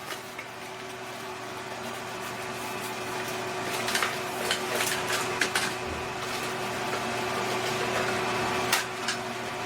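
Cardboard box and packaging being handled: a cluster of sharp clicks and taps about four to six seconds in and another near the end, over a steady machine hum.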